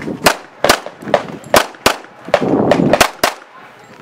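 Para P14 pistol firing a rapid string of sharp, ringing shots, about two a second, on a USPSA stage.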